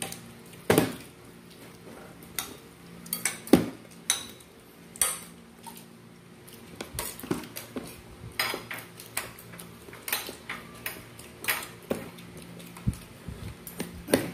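Cutlery and dishes clinking at a meal table: irregular clicks and knocks of metal utensils and glassware against plates, a few sharper knocks among many lighter clinks.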